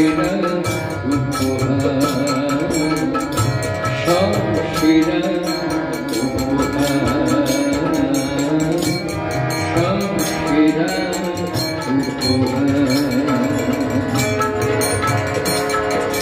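A man singing a Bengali devotional song with harmonium accompaniment and a steady drum beat.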